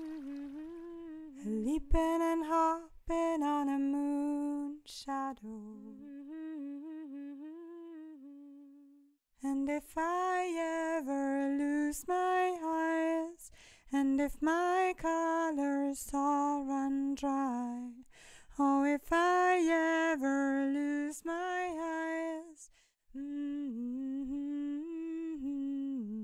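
A woman humming a tune without accompaniment, with a short pause about eight seconds in.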